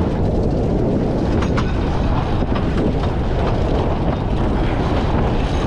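Steady wind noise on the action camera's microphone, over water washing along the hull of a sailboat heeled under sail in a strong breeze, with a few faint clicks.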